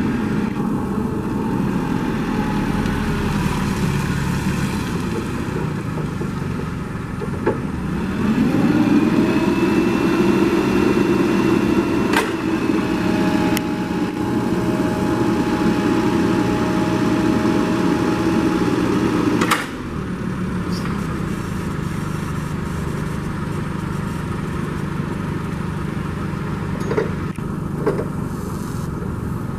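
A Cat C5000 forklift's engine runs steadily. About eight seconds in it speeds up and a hydraulic whine joins it as the three-stage mast is raised. At about twenty seconds it drops back with a sharp clunk as the lift is released and the mast comes down.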